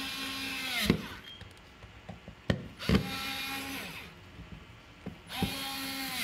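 Dremel cordless electric screwdriver driving a gas detector's case screws back in: three short runs of a steady motor whine, each winding down in pitch when it stops, with a few clicks between runs.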